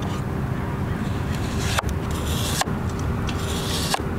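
Chef's knife slicing through raw potatoes on a wooden cutting board, with crisp cutting sounds and a few sharp taps of the blade on the board. A steady low rumble runs underneath.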